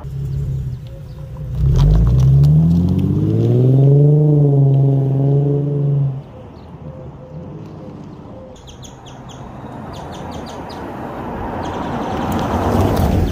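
Infiniti G37's V6 with the muffler deleted: idling, then revved up about two seconds in, held for a few seconds with the pitch rising, and dropped back suddenly around six seconds. Birds chirp in the quieter stretch that follows, and a rising rush of noise builds near the end.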